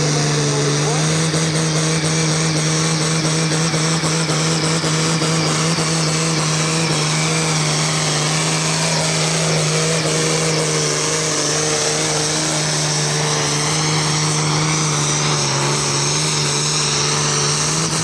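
Heavily tuned turbo-diesel pulling-tractor engine held at full throttle, its pitch nearly constant throughout, with a higher whine that dips and rises again about halfway through.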